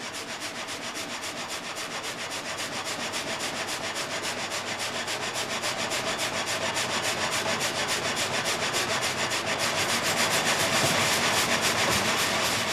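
Water-powered vertical frame saw with several blades cutting through a log: a rhythmic rasping on each up-and-down stroke, several strokes a second, slowly growing louder.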